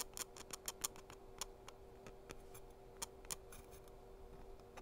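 Faint, irregular clicks and ticks of a small spreader card pressing ceramic paint through a fine mesh stencil onto glass.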